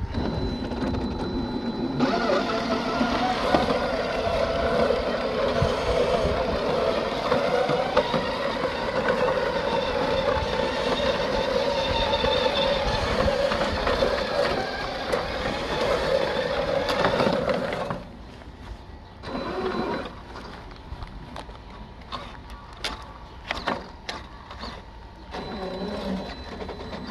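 Traxxas X-Maxx RC truck's electric drivetrain whining as it pushes a manual reel mower through grass, the mower's reel blades spinning, loud and steady. About eighteen seconds in it drops to a quieter stretch of short stop-start bursts and clicks.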